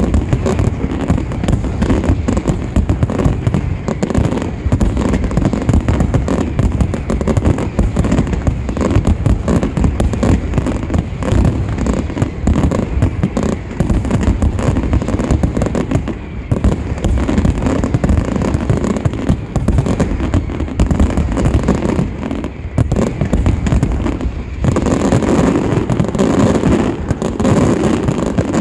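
Aerial firework display: a dense, continuous barrage of shell bursts and crackle, loud throughout. Near the end the barrage grows heavier and fuller.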